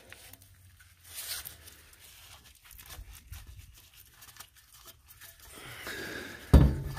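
Wet, vinegar-soaked paper tissue being peeled and torn off a hot-rolled steel bar, with crinkling and crackling as the bar is handled. A sharp knock near the end is the loudest sound.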